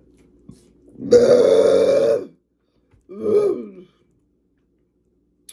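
A woman belching after drinking a fizzy cream-soda-flavoured Coca-Cola: one long, loud burp about a second in, then a shorter, quieter one a couple of seconds later.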